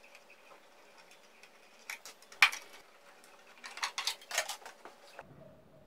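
Small metal clicks and clinks of an Allen key and small steel screws being worked out of a bench disc sander's guard: one sharp click about two and a half seconds in, then a quick cluster of clinks around four seconds.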